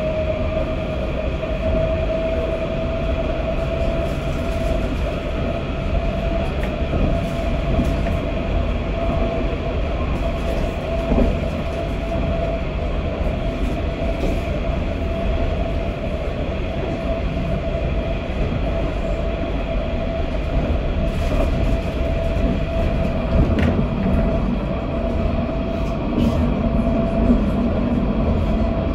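Inside a Luas Citadis tram running between stops: a steady rumble of wheels on rail under a constant electric whine, with a few light clicks.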